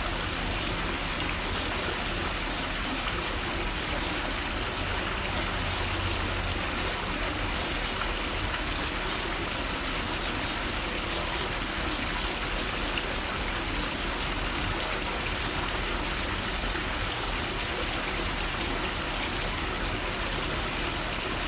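A steady outdoor wash of noise, with small birds giving short, faint, high chirps in little clusters several times.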